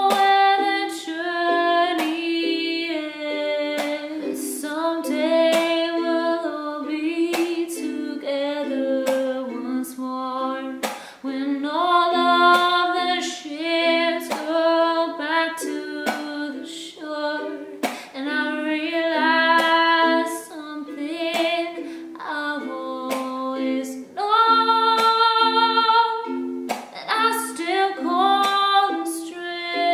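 A woman singing a slow melody while strumming chords on a ukulele.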